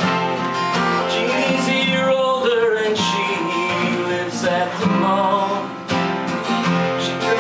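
Live guitar music: two guitars, one of them acoustic, playing a song together.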